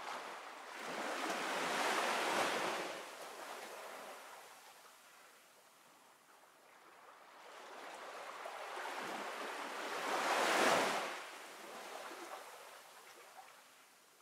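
Ocean waves washing in and drawing back, two swells of surf several seconds apart, each rising and then fading slowly.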